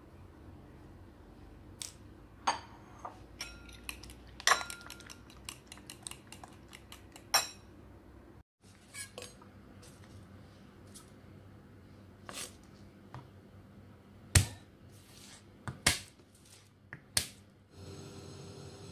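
A metal spoon clinking quickly against a ceramic bowl as raw eggs are beaten. After a break, a cleaver knocks several times on a cutting board while chopping garlic cloves, each stroke a sharp knock with a low thud. A steady hum starts near the end.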